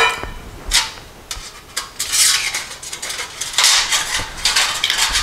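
Stainless steel backpacking cook-kit parts (a thin perforated windscreen, pot lid and small stove) being handled and set down on a stone countertop: a series of irregular metal clinks and rattles, some with a brief ringing.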